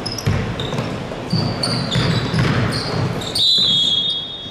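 Basketball game in a gym: a ball bouncing on the hardwood and sneakers squeaking in short chirps. Near the end a referee's whistle blows for about a second.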